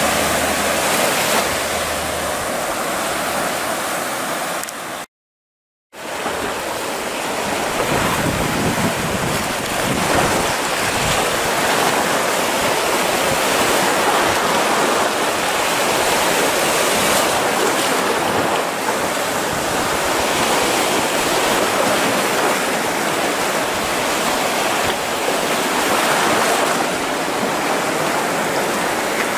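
Small sea waves washing in over sand and around rocks at the shoreline: a steady rush of surf that cuts out for about a second some five seconds in.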